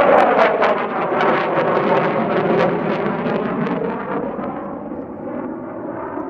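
McDonnell Douglas F-4EJ Phantom II's twin J79 turbojets after a close pass: loud jet noise with a crackle and a pitch that falls. The sound fades steadily as the jet pulls away into a banking turn.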